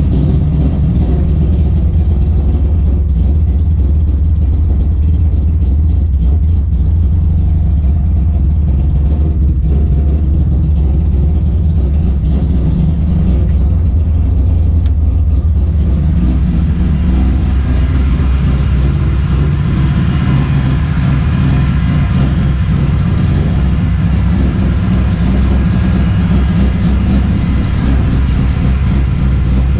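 Mazda 20B three-rotor rotary engine running steadily while it warms up after a startup, with a deep low rumble. About halfway through its sound turns brighter and fuller, though no louder.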